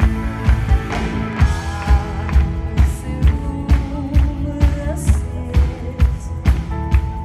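Live pop-rock band played through a PA: drum kit, electric bass, electric guitar and keyboards with a steady beat of about two drum hits a second, and a woman singing at the microphone.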